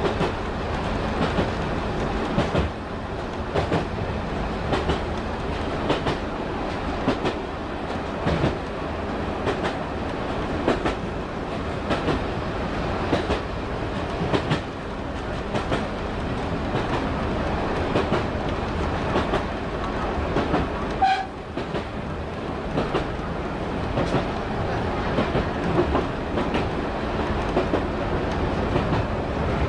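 Diesel multiple unit running along jointed branch-line track, heard from the cab: a steady running drone with the wheels knocking over rail joints about once a second. A brief high-pitched tone sounds about two-thirds of the way through.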